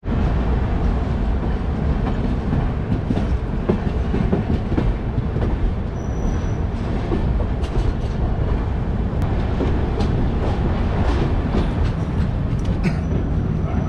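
Passenger train coach rolling over the tracks and points: a steady rumble of wheels on rail with scattered clicks over joints and crossings, heard through an open coach door.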